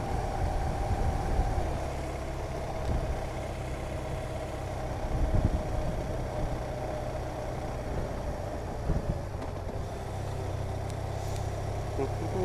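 Touring motorcycle engine running steadily at low town speed, heard from the rider's seat along with road noise, with brief low surges about five and nine seconds in.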